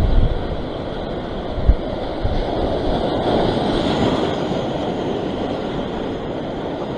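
Sea surf surging and breaking over a rock shelf, with wind buffeting the microphone; a single low thump about a second and a half in.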